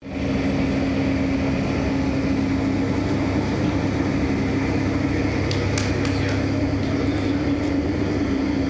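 Straw briquetting line running: a steady machine drone with a strong low hum. A few light clicks come about six seconds in.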